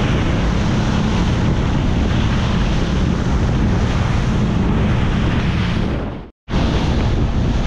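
Motorboat running at speed: a steady low engine drone under wind buffeting the microphone and the rush of water along the hull and wake. The sound cuts out for a moment about six seconds in, then carries on.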